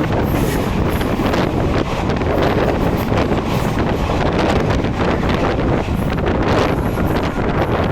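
Passenger train running through a station without stopping, heard from onboard: a steady loud rush of wheel and rail noise with wind buffeting the microphone, and a few sharp clacks scattered through it.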